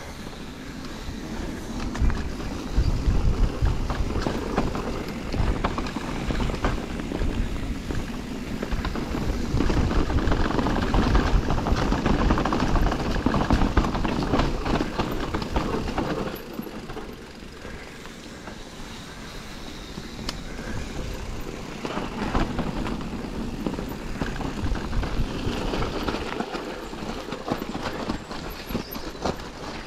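Enduro mountain bike riding over rough trail ground: a steady rumble of tyres and rattle of the bike, with wind noise on the action-camera microphone. It is louder in the first half and eases off about halfway through.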